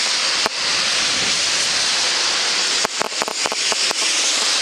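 Steady hiss of heavy rain in wind, broken by a sharp click about half a second in and a quick run of clicks around three seconds in.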